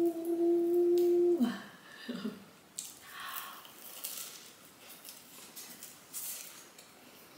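A woman hums a steady, pleased 'mm' for about a second and a half, the note dropping at the end. Then the flaky crust of a laugen croissant crackles in short bursts as she pulls it apart and bites and chews.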